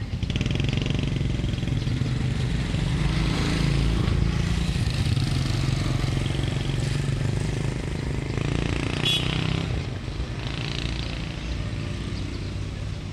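An engine running steadily close by, growing louder for a few seconds and then easing off, with one short sharp clink about nine seconds in.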